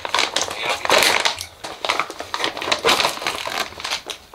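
Irregular crunching and crinkling: a dense run of short, uneven crackles.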